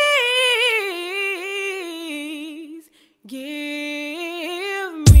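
A woman singing gospel unaccompanied: long held notes with vibrato and melismatic runs, a short breath about three seconds in, then another sustained note. Just before the end a loud, deep thump comes in as backing music starts.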